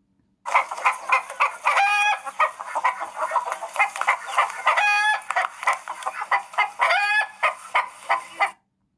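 Recorded chickens clucking in a rapid string of short calls, broken by three longer drawn-out calls; the recording starts about half a second in and stops abruptly near the end.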